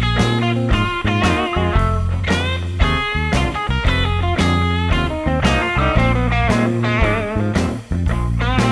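Background music: guitar playing over a steady beat.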